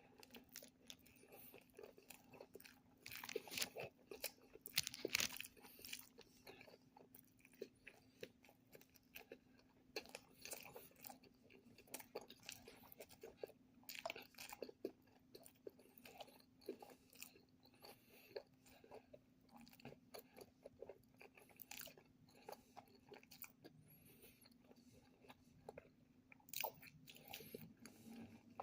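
A person chewing a hamburger close to the microphone: soft, irregular crunches and wet mouth clicks, loudest a few seconds in, over a faint steady hum.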